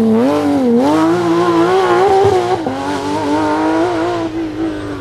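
Porsche 911 GT3 rally car's flat-six engine running hard on a tarmac stage, its pitch rising and dipping with the throttle. About two and a half seconds in the pitch drops sharply, then holds steadier and a little quieter near the end.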